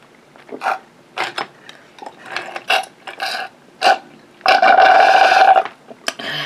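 Mouth sounds of a person eating and drinking: several short smacks in the first few seconds, then one loud, drawn-out throaty sound lasting just over a second about four and a half seconds in.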